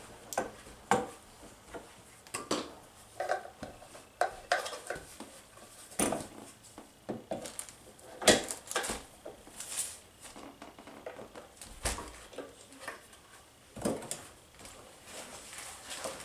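Irregular clicks, knocks and clatter of hard plastic parts being handled, as a plastic wheel is fitted onto the metal axle of a children's ride-on toy car.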